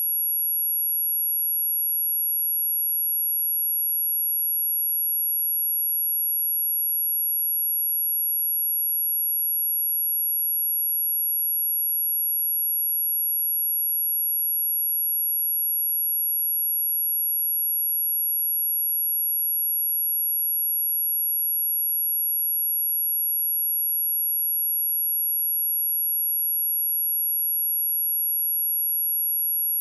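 A pure 11334 Hz sine-wave test tone, one steady high-pitched note with no change in pitch or loudness.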